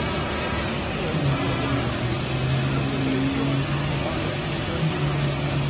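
Oscillating-knife CNC cutting machine running while it cuts aramid (Kevlar) fabric: a steady mechanical noise with a low hum that grows stronger about a second in.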